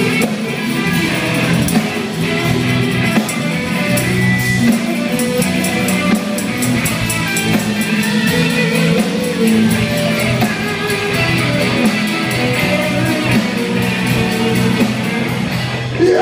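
Live instrumental jam led by guitar, playing chords over a quick, steady beat.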